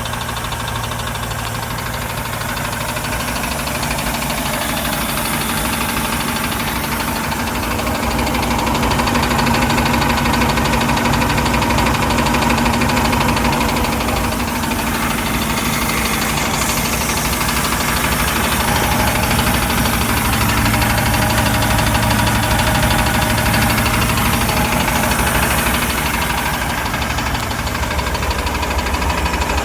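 MerCruiser 4.3 LX V6 marine engine running steadily with a tapping, knocking sound from the rear of the engine.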